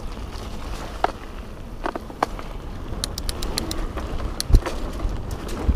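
Mountain bike descending a dirt trail: steady tyre and wind noise with scattered rattles and clicks from the bike, a quick run of sharp clicks about three seconds in, and a heavy thump about four and a half seconds in as the bike hits a bump.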